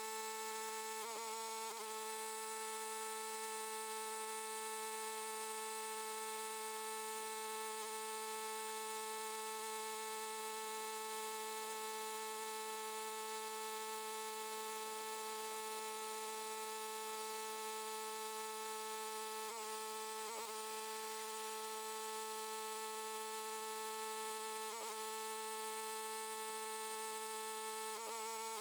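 A steady machine hum at one fixed pitch that never changes, with faint hiss above it.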